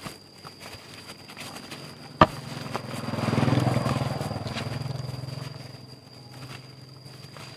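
Engine of a passing motor vehicle, a low hum that swells about three seconds in and fades away; a sharp click just before it.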